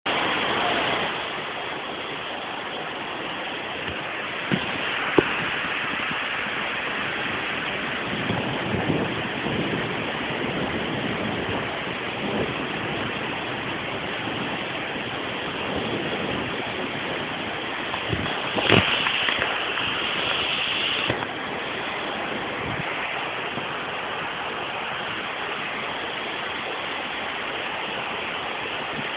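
Heavy rainstorm with floodwater running through a flooded street: a steady rush of rain and moving water. There are a few sharp knocks, and a louder hiss for a couple of seconds past the middle.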